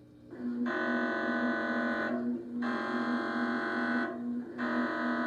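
Emergency Alert System header tones: three harsh electronic buzzing bursts, each about a second and a half long with short gaps between them, signalling the start of an emergency alert broadcast.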